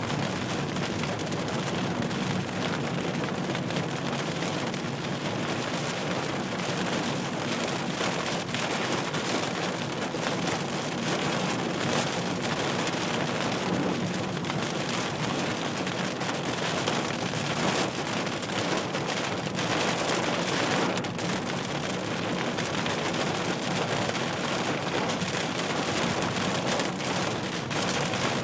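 Heavy thunderstorm rain falling steadily, a dense patter of drops striking surfaces.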